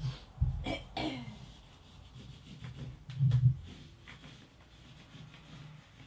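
Graphite and hands scratching and rubbing across a large sheet of brown paper, in a few sharp strokes, with low strained groans from the person drawing. The loudest groan comes about three seconds in.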